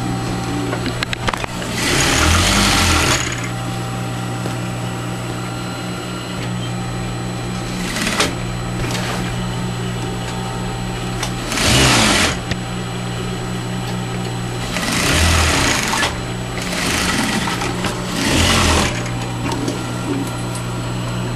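Electric sewing machine stitching fabric in several short runs of about a second each, over a steady low hum.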